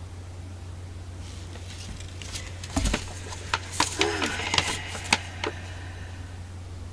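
Paper instruction leaflet rustling and crinkling as it is handled and unfolded, with several sharp clicks, over a steady low hum.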